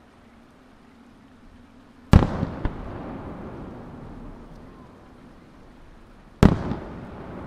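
Two loud booms from aerial firework shells, about four seconds apart, each followed by a long echoing tail that dies away over a couple of seconds.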